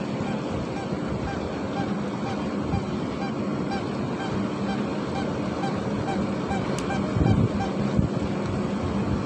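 A boat engine running with a steady hum, over a low rumble of wind on the microphone.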